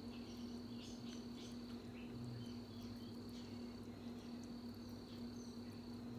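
Faint, soft eating sounds, scattered small clicks and smacks of picking and chewing king crab from the shell, over a steady low electrical hum and a thin high-pitched whine.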